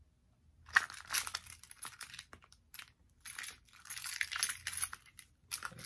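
A bunch of metal keys jingling and clinking as they are handled and pulled out of a monogram canvas key holder, in irregular rattles starting about a second in.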